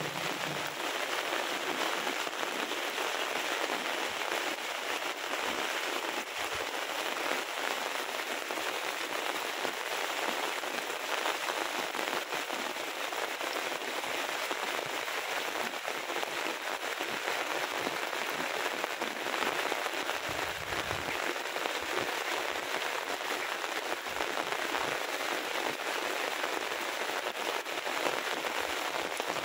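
Heavy rain falling steadily, a dense, even patter of countless drops.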